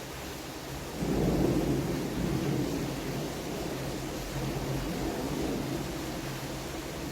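Steady rain with a roll of thunder that breaks in about a second in, loudest at the start and slowly dying away under the rain.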